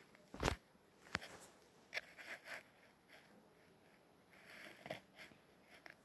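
Handling noise: a sharp knock about half a second in, a smaller click, then scattered light rustles and taps as the paper and phone are moved about between pencil strokes.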